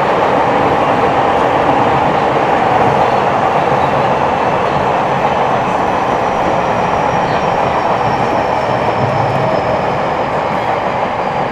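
Interior running noise of a Nagoya Municipal Subway 3050-series train between stations: a steady, loud rumble of wheels on rail. In the second half a faint high whine falls slowly in pitch.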